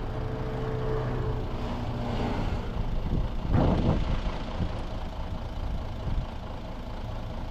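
Engine running steadily with a low hum; a steady tone fades out about a second and a half in, and a brief swell of noise comes a couple of seconds later.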